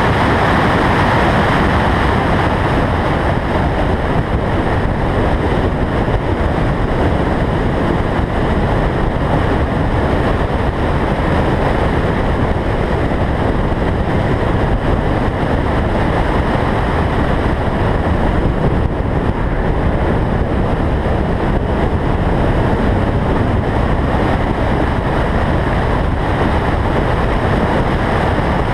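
Steady, loud rush of wind over a car's roof-mounted camera microphone at track speed, mixed with the car's engine and tyre noise.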